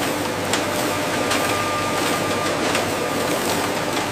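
Frozen chicken nuggets clattering as they tumble off a wire-mesh conveyor onto a plastic modular belt, scattered hard clicks over the steady running of the conveyor machinery.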